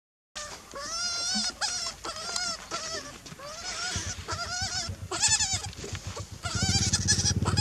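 Baby macaque crying in a string of short, high, wavering calls, about two a second, while a larger young monkey sits on it. A low engine drone comes in partway through and grows louder near the end.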